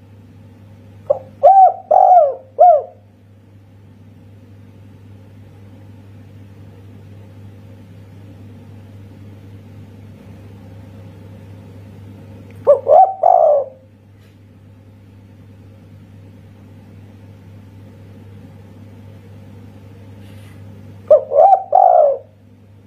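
Spotted dove (tekukur) cooing in the 'kuk satu' style: three phrases of several quick coo notes, about ten seconds apart. A steady low hum runs underneath.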